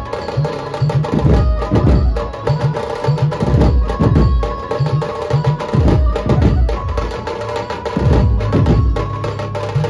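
A dhumal band's large bass drums and side drums are beaten with sticks in a loud, driving rhythm. Deep thumps come in quick clusters, with steady held tones ringing above them.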